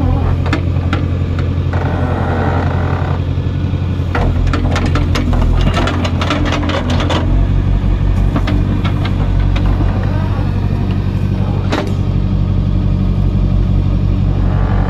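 Excavator's diesel engine running steadily under hydraulic load as its bucket pushes and drops soil. There is a run of knocks and clatter from the bucket and falling soil and stones in the middle, and one sharp knock a little before the end.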